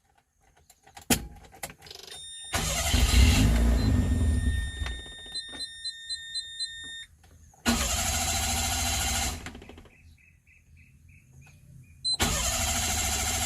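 Daihatsu Mira starter motor cranking the engine three times, each attempt a few seconds long, without the engine catching: a no-start from a failed fuel pump. Short rows of dashboard beeps sound between attempts.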